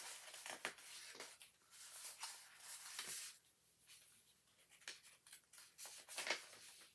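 Faint rustling and sliding of paper sticker sheets being handled and laid out by hand, a series of short brushing swishes.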